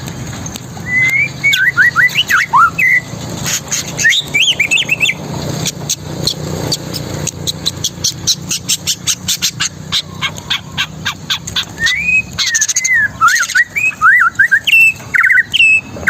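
Long-tailed shrike (cendet) singing loudly through its repertoire of mimicked songs: quick whistled notes sliding up and down, a long run of rapid sharp ticks in the middle, then more whistled phrases.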